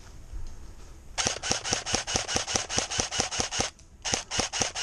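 Airsoft M14 electric rifle (AEG) firing two full-auto bursts, a rapid even string of shots about eight a second: the first starts a little over a second in and lasts about two and a half seconds, the second starts near the end.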